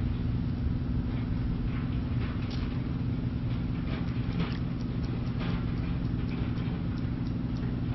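Steady low drone of an engine running, with faint scattered ticks and rustles over it.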